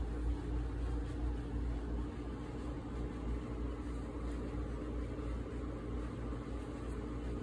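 Steady low background hum, with no clear events standing out.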